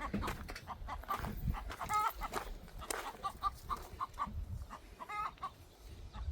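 Chickens clucking: a string of short clucks with a few longer, wavering calls, over a low rumble.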